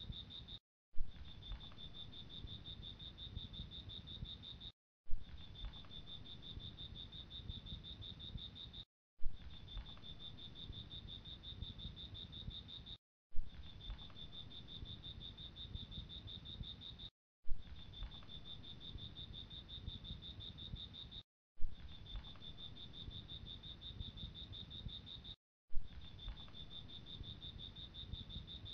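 Steady high-pitched insect trill over a low rumble, broken by a brief dropout about every four seconds, each followed by a sharp click as the same short stretch of sound repeats.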